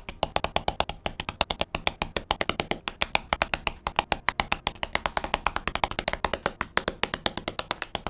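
Mechanical keyboard switches being pressed into the plate and hot-swap PCB sockets of a QK75 build: a rapid series of sharp plastic clicks, about ten a second.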